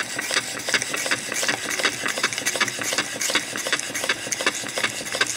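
Twin-cylinder, single-acting, rotary-valve model steam engine running steadily just after being got under way, making a rapid, even beat of exhaust and mechanism clicks.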